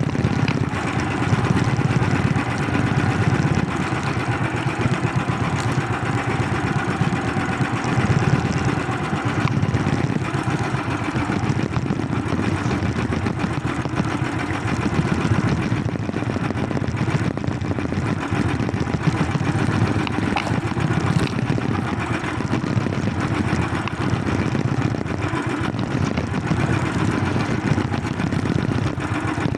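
A small engine running steadily, a constant drone with no change in speed.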